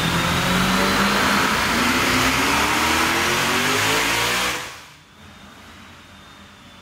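Turbocharged, methanol-burning 380 small-block Chevy V8 on an engine dyno making a wide-open-throttle pull, rising steadily in pitch for about four seconds with a thin high whistle above the engine note. Then it drops off sharply to a much quieter run-down as the throttle closes.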